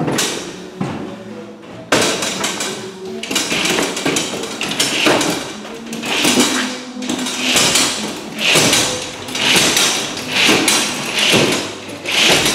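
Magliner appliance hand truck being hauled up a staircase step by step, knocking against the stairs in a steady series of thuds, roughly one a second.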